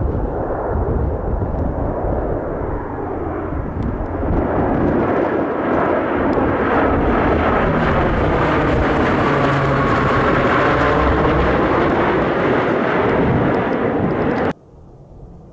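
Lockheed CP-140 Aurora's four Allison T56 turboprop engines on landing approach, passing low overhead. A steady drone grows louder to its peak as the aircraft goes over, then cuts off suddenly near the end.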